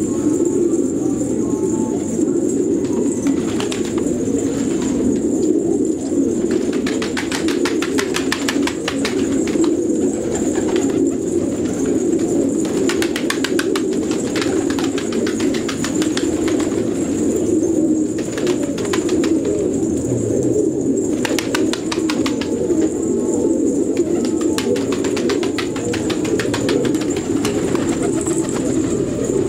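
A flock of fancy pigeons cooing continuously, many coos overlapping into a steady low burble. Stretches of rapid fine clicking come and go over it.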